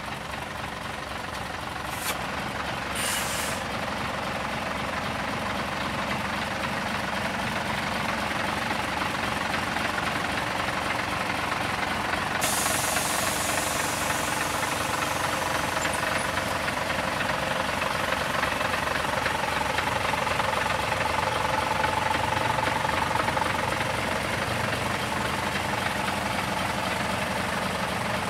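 Scania 113M fire engine's 11-litre straight-six diesel idling steadily. There are two short bursts of air hissing about two and three seconds in, and a steady higher hiss joins about twelve seconds in.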